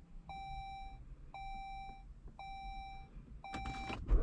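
2006 Saab 9-3 Aero's dashboard warning chime beeping four times, about once a second, each a steady pitched tone. Near the end come a few clicks as the ignition key in the centre console is turned, and the engine begins to start right at the very end.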